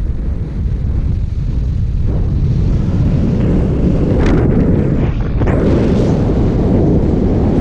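Wind rushing over the camera microphone of a paraglider pilot in flight, a steady low rumble that grows louder about two seconds in as the glider banks into a turn.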